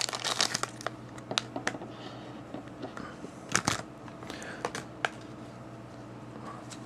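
Blind-box packaging being opened and handled: the wrapper crinkles and tears, with scattered clicks and taps, and a louder click about three and a half seconds in.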